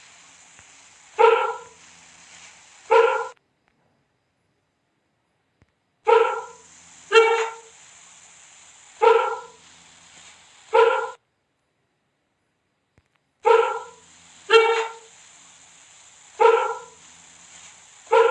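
A big cat's short, barking calls, about one every second or two, in runs of four with pauses of a few seconds between them.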